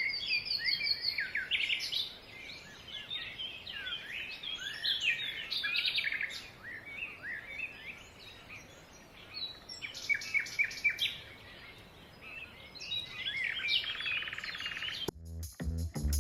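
Songbirds singing: many short chirps, trills and quick gliding notes overlapping. About a second before the end they cut off abruptly and electronic music with a heavy bass beat starts.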